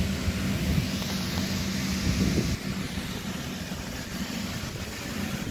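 Electric blower fan of an inflatable bouncy castle running, keeping it inflated: a steady hum with a rush of air, which gets quieter about two and a half seconds in.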